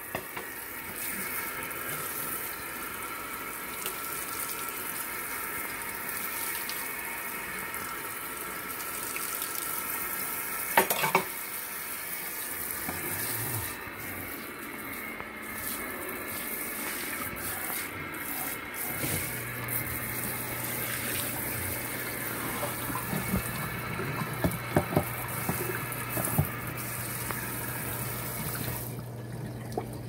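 Kitchen tap running into a sink basin, a steady rush of water splashing on the porcelain, with a few sharp knocks along the way. A low steady hum joins about two-thirds of the way through.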